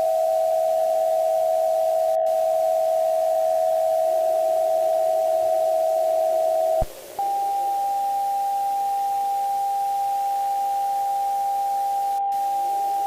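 Synthesized emergency-alert attention tone: a steady electronic chord of two close tones that cuts off with a click about seven seconds in. After a brief gap a single, slightly higher steady tone takes over.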